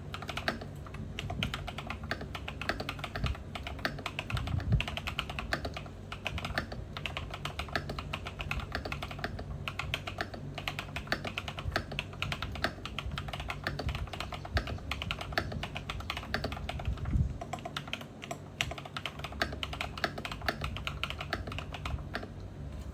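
Fast, continuous typing on an 8BitDo Retro Mechanical Keyboard with clicky Kailh Box White V2 switches, a dense run of key clicks with a few louder keystrokes, over a steady low hum.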